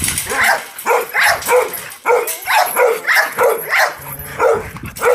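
A dog barking over and over, about two barks a second, every bark about as loud as the rest.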